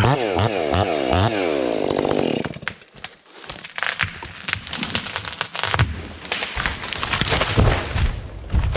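Chainsaw engine revving up and down for about two and a half seconds, then stopping, followed by wood cracking and snapping as a felled tree comes down through the branches, with heavy thuds as it hits the ground near the end.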